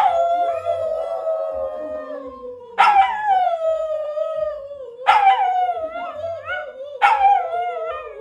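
A dog howling: four long howls, each starting high and sliding down in pitch as it is held.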